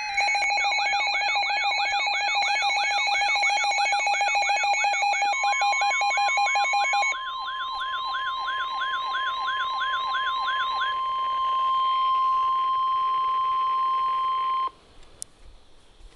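NOAA weather radios sounding their alert alarms together for an EAS flood warning: siren-like up-and-down warbling tones at about three sweeps a second, with a rapid beeping that stops about seven seconds in. From about five seconds in, the broadcast's steady 1050 Hz warning alarm tone sounds with them, runs on after the warbling ends, and cuts off abruptly about fifteen seconds in.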